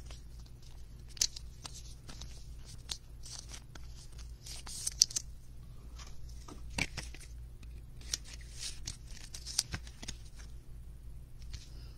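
A trading card being handled in a clear plastic sleeve and holder: scattered soft clicks and rustles of plastic, over a low steady hum.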